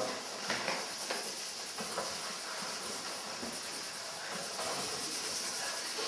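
A steady high hiss of background noise, with a few faint, brief soft sounds in the first two seconds.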